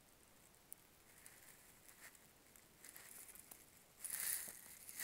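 Near silence: faint room tone with a few small clicks and rustles, and a short hissing noise about four seconds in.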